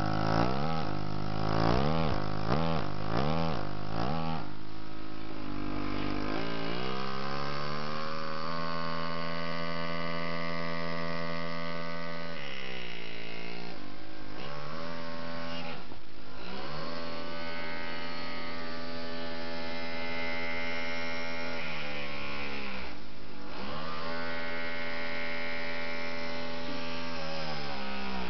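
Pneumatic palm-control engraving handpiece buzzing as it cuts, its pitch rising and falling as hand pressure changes the stroke rate. The pitch swings quickly up and down over the first few seconds, then holds in long steady runs broken by a few brief dips.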